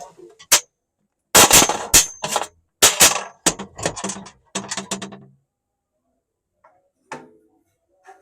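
A quick run of sharp metal clanks and knocks, about a dozen over five seconds, then a single one near the end: tools and metal parts handled while a welding machine is taken apart.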